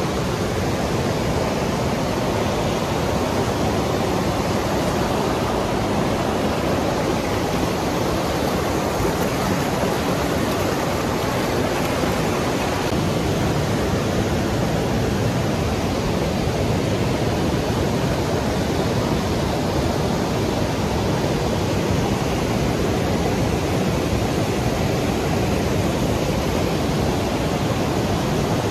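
Vickery Creek Falls rushing: a steady, even wash of falling water with no change throughout.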